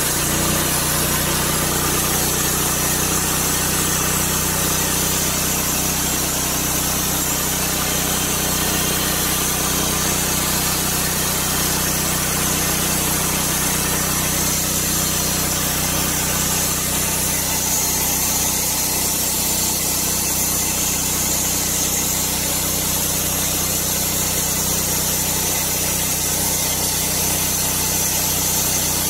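The gas engine of an SMG portable bandsaw mill runs steadily under load while the band blade saws lengthwise through a black spruce cant.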